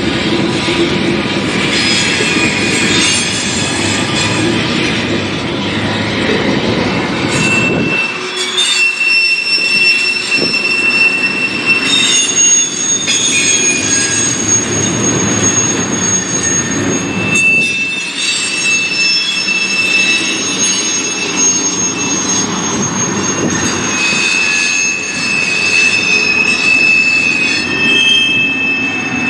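Freight train's cars (tank cars, a boxcar and centerbeam flatcars) rolling past over a steady rumble, their steel wheels squealing in high thin tones that come and go.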